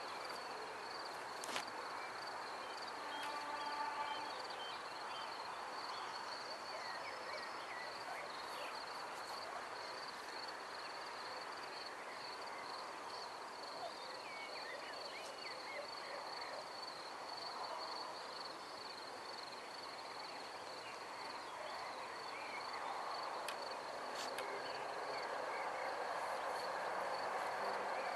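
Evening outdoor ambience: scattered bird chirps over a steady high-pitched tone, with a short pitched call about three seconds in and a soft background rush that grows louder near the end.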